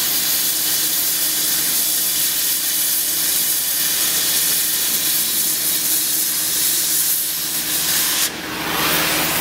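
Hand-held oxy-fuel cutting torch cutting through steel plate: a loud, steady hiss of the gas jet, with a brief sudden dip near the end.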